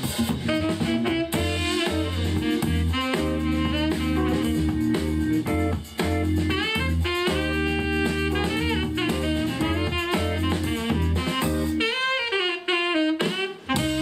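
Instrumental music with a lead melody over drums and a heavy bass line, played back through a portable Bluetooth speaker for a sound test; the bass drops out briefly near the end.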